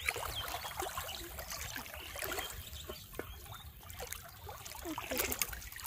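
Pond water sloshing and trickling around people wading chest-deep, with scattered small splashes.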